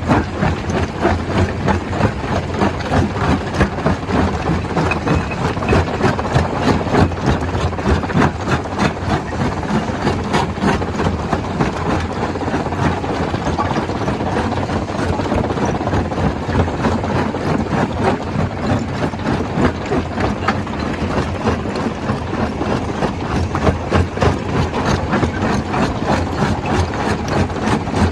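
Stone crusher running steadily, crushing rock: a continuous loud machine rumble overlaid with a dense, unbroken clatter of stone being broken.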